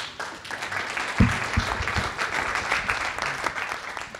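Audience applauding, a steady patter of clapping, with two low thumps a little over a second in, the first the loudest moment.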